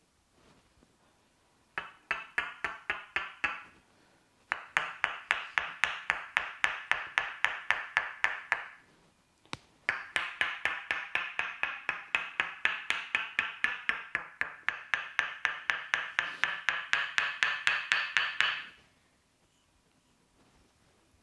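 Tok sen massage: a wooden mallet tapping quickly on a wooden wedge held against the body. It gives hollow wooden knocks at about five a second, in three runs with short pauses, the last run the longest.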